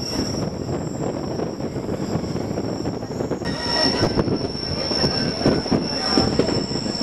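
Rhaetian Railway electric train running along the track, its wheels on the rails giving a continuous rumble with a steady high-pitched squeal that grows louder about halfway through.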